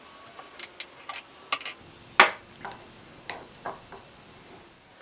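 Irregular light metal clicks and clinks as a small steel gear is pressed off a mitre saw gearbox arbor held in a bench vice with a socket, one louder click about two seconds in.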